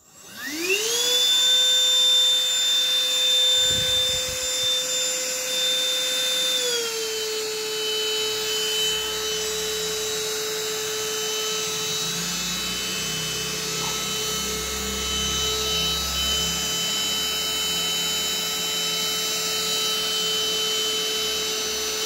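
Ingco CVLI2001 20 V cordless handheld vacuum cleaner switched on: its motor spins up within about a second to a steady high whine. The pitch drops slightly about seven seconds in and then holds.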